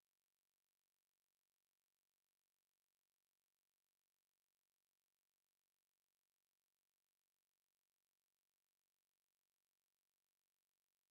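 Silence: the sound track is cut to nothing.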